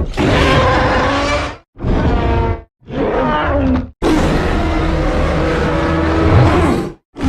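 King Kong creature-vocalization sound effects: four separate giant-ape calls in a row, each cut off by a brief silence. The last runs about three seconds.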